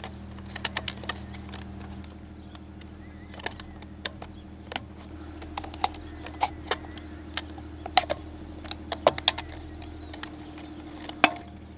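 Irregular clicks and knocks of a nose cone being twisted counterclockwise and pushed onto the rotor hub of a D400 wind generator, over a steady low hum.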